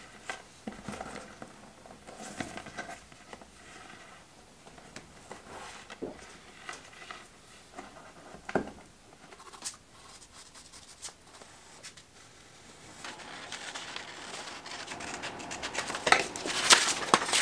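Light handling noises on a workbench: scattered soft clicks and scratches as a silicone rubber net is shifted along a tape measure. Near the end it grows into louder paper rustling as a paper template is handled.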